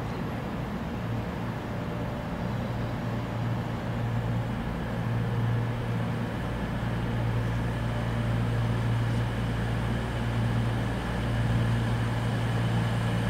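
A train running with a steady low hum that slowly grows louder, with a deeper rumble joining about six seconds in.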